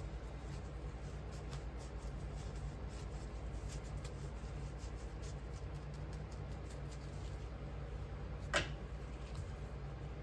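Petrobond casting sand being sifted through a screen into a molding flask: a faint scratchy rustle with scattered light ticks over a steady low hum. A short squeak falling in pitch about eight and a half seconds in.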